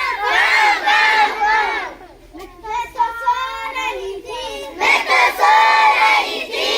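A group of children chanting a rhyme together loudly in unison, with a short lull about two seconds in.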